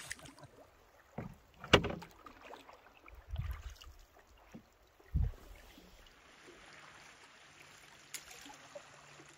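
Canoe paddling: a few knocks and splashes of a wooden paddle against the canoe's side and the water in the first five seconds, the loudest a sharp knock about two seconds in. This gives way to a faint, steady wash of moving water.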